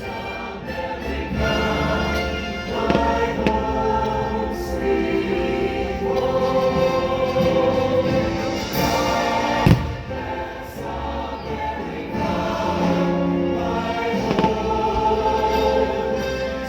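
Choir singing with musical accompaniment from the fireworks show's soundtrack, with a few firework bangs through it, the sharpest about ten seconds in.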